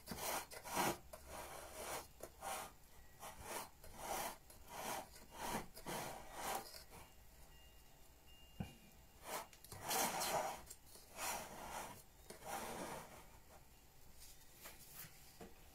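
Silicone spatula scraping and smoothing thick banana cake batter in a round cake pan, in repeated short strokes that thin out near the end.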